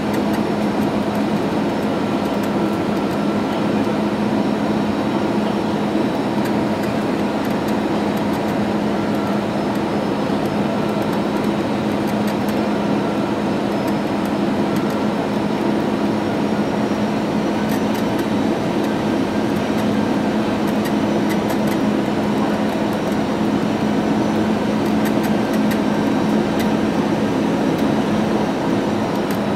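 Steady cabin noise of a jet airliner on final approach, heard inside the cabin by the wing: engine and airflow drone with a low hum and a few faint steady tones, unchanging until just before touchdown.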